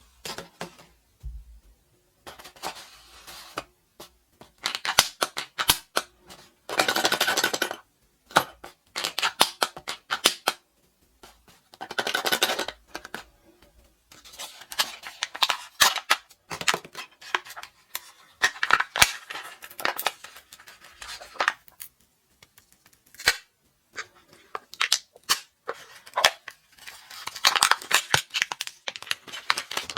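Plastic and foil candy wrappers crinkling and tearing open in bursts of about a second, between sharp plastic clicks and taps as packaging and toy pieces are handled.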